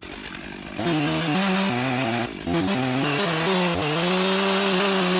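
Large Stihl chainsaw throttled up to full revs about a second in and cutting into a big Douglas fir log; the engine note wavers and dips briefly under load partway through, then holds steady.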